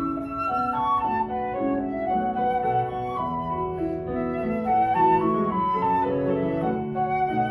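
Concert flute and grand piano playing together, the flute carrying a moving melody over the piano's sustained chords.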